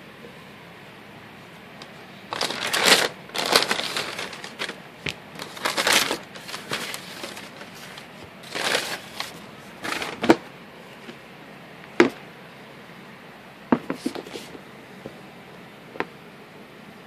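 Tissue paper rustling and crinkling in a cardboard shoebox as it is opened, in several irregular bursts, followed by a few separate sharp knocks as the sneakers are handled.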